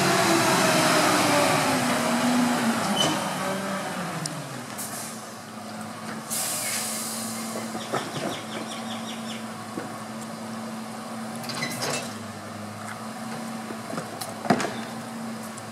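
Rear-loading garbage truck: its engine runs loud at first, its pitch falling over about four seconds, then settles to a steady idle. A short hiss of air comes about six seconds in, with scattered clanks and knocks from the bins and lift, the sharpest near the end.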